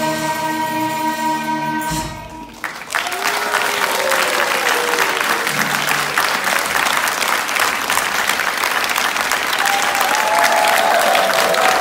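The song's final held chord ends about two seconds in; after a short pause an audience breaks into steady applause, with a few voices calling out over the clapping.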